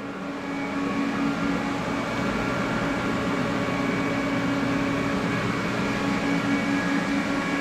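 Steady hum and hiss from the aluminium TIG welding setup, a little louder from about a second in and then even, with a few faint held tones.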